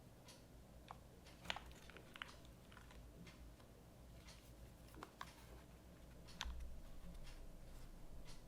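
Slow, sparse keystrokes on a mechanical keyboard with lubed Gateron Oil King linear switches, GMK keycaps and an aluminium plate: about a dozen soft, irregularly spaced key clacks, a few in quick pairs.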